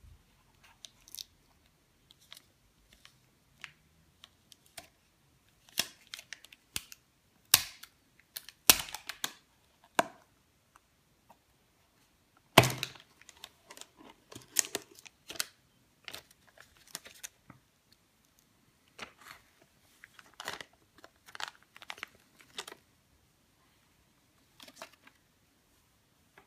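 Gloved hands handling an iPod and its packaging: scattered crinkles of plastic film and small taps and clicks on the box insert, with one sharp knock about twelve seconds in, the loudest sound.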